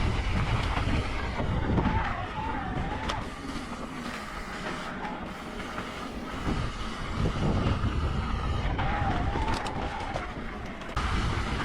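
A mountain bike rolling fast down a dirt trail: a constant rumble of wind on the mic and tyres on dirt, with the bike rattling. A brief wavering squeal comes twice, about two seconds in and again near the end.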